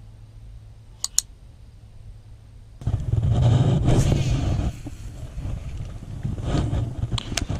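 Two quick mouse clicks about a second in, then from about three seconds a loud rumbling of wind buffeting the action camera's microphone.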